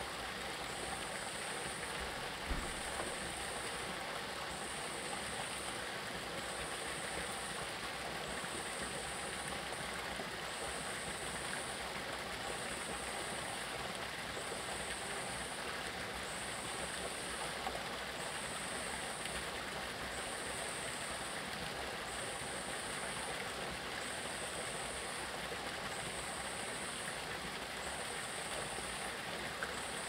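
Steady rush of a mountain stream, with a thin, high-pitched pulse repeating about once a second. There is a single soft knock about two and a half seconds in.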